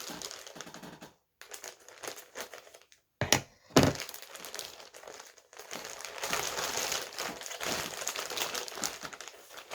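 Scissors cutting open a mail-order package, with the packaging crinkling and rustling as it is handled. Two sharp knocks come about three and a half seconds in, followed by a long stretch of crinkling as the package is opened.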